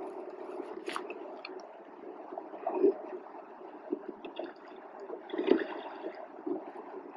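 Water gurgling and sloshing around a rowing boat, with two louder splashes about three seconds in and again about five and a half seconds in.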